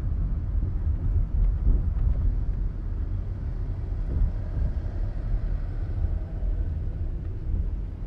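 Car driving at low speed: a steady low rumble of engine and tyre noise.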